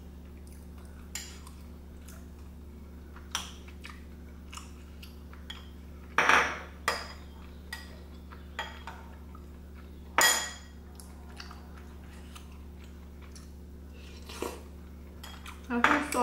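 Eating sounds: a utensil clicking and scraping against a pot of spicy rice cakes, with chewing, over a steady low electrical hum. Two louder clatters come about six and ten seconds in.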